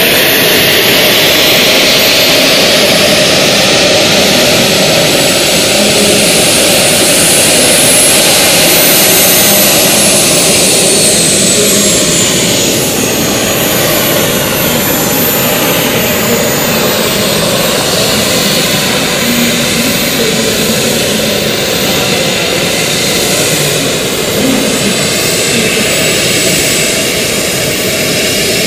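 Model jet turbines of a radio-controlled McDonnell Douglas MD-11 running as the model taxis on the runway: a steady, loud high whine that climbs about a third of the way in, then falls back and stays lower toward idle.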